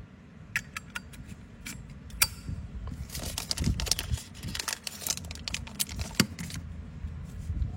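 A run of sharp metallic clicks and clinks with some rustling as used metal pocket lighters are handled, thickest in the middle.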